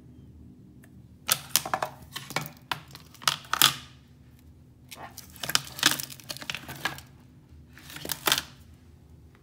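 Tearing and crackling as a broken iPad Pro's cracked display is pulled away from its adhesive, in three bouts of rough bursts.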